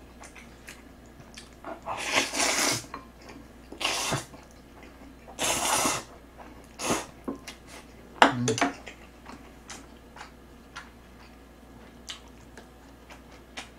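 Jjajang (black-bean-sauce) instant noodles slurped from a bowl with chopsticks: four long slurps over the first seven seconds and a shorter one about eight seconds in, then only small faint ticks.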